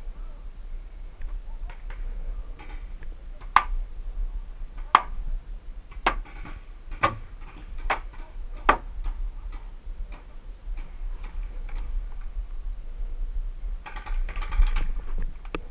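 Paintball markers firing: single sharp pops roughly a second apart through the middle, with a quick flurry of fainter pops near the end.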